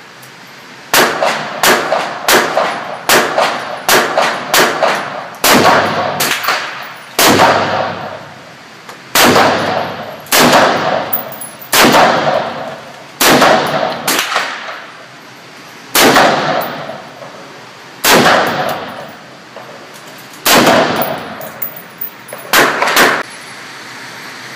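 M4 carbine firing single shots in a steady semi-automatic string, about two dozen in all, spaced from half a second to two seconds apart, each crack followed by a short ringing decay.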